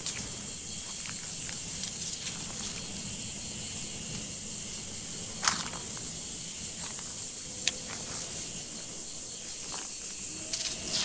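Steady, high-pitched drone of forest insects, with a few sharp snaps about halfway through and again a couple of seconds later.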